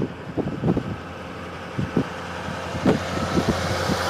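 A motor vehicle's engine running steadily with a low hum, with scattered short knocks and a hiss that grows louder toward the end.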